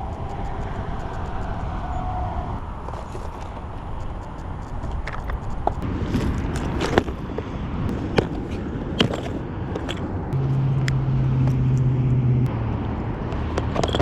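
Steady low rumble of wind and distant road traffic, with scattered light clicks and knocks. A steady low hum joins it for about two seconds, starting about ten seconds in.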